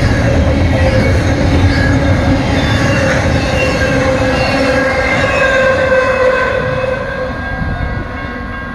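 Long double-stack intermodal freight train rolling past: a steady rumble of wheels on rail with drawn-out wheel squeal over it. It fades about seven seconds in as the last cars pass and move away.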